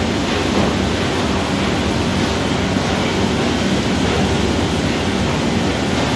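Steady, loud rushing hiss of a water jet spraying onto the hot oak staves of a 500-litre barrel being charred over fire, the water flashing into steam.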